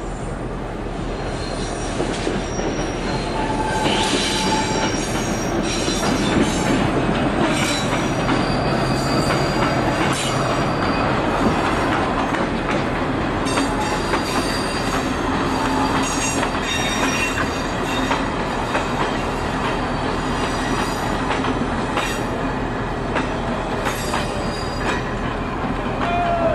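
Passenger coaches rolling slowly past on the rails, with the wheels squealing on and off in high thin tones over a steady rumble and intermittent clicks from the rail joints.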